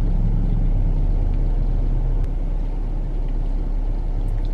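Steady low rumble of a car running at idle, heard from inside the cabin.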